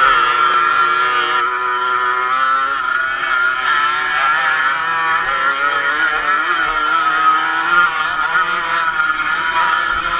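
Off-road motorcycle engine running under throttle while the bike is ridden over dirt, its pitch rising and falling as the throttle is worked.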